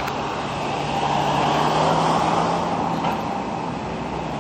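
A car driving past, its engine and tyre noise swelling to a peak and fading over a few seconds.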